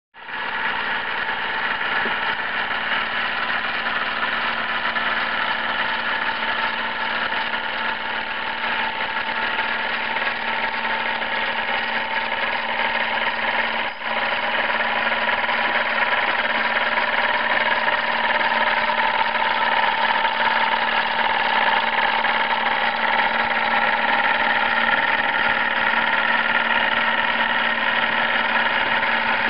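Bowman M101 model steam engine running steadily, an even, continuous mechanical sound that starts abruptly and holds the same pace throughout, with one brief dip about halfway.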